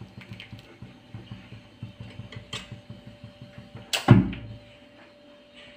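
Kitchen handling sounds: a spoon working payasam in a glass serving bowl, with soft rapid tapping at about four or five taps a second, then a single loud knock about four seconds in.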